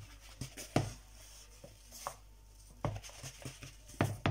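Gloved hand tossing pork strips in flour in a plastic bowl: soft rustling and squishing with a few irregular knocks of the bowl, the loudest about a second in and near the end.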